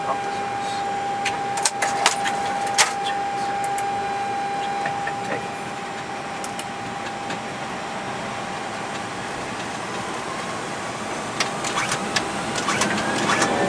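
Airbus A321 cockpit sound while lining up for take-off: a steady whine with scattered sharp clicks. Over the last few seconds a rising whine builds as the thrust levers are advanced and the engines begin to spool up.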